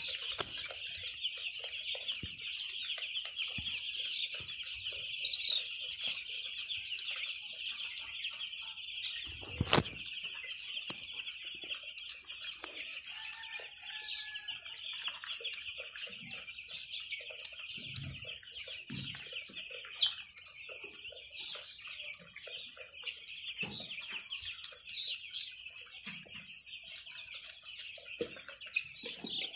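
A large flock of six-day-old broiler chicks peeping continuously, many high cheeps overlapping into a steady chorus. A single sharp knock sounds about ten seconds in.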